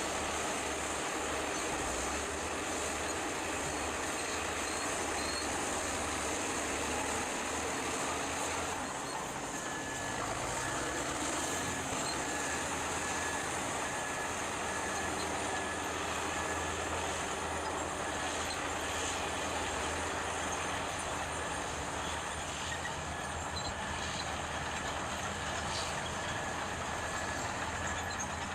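Heavy vehicle engine running steadily. From about ten seconds in, a high beep repeats at even spacing.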